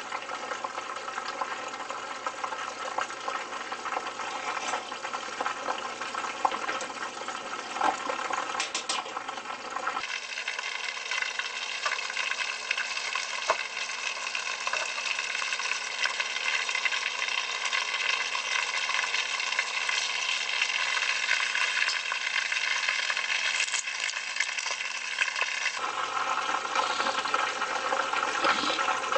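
Oil sizzling and crackling as supermarket yakitori skewers shallow-fry in a frying pan, a dense patter of small pops. The sizzle changes abruptly about ten seconds in and again near the end.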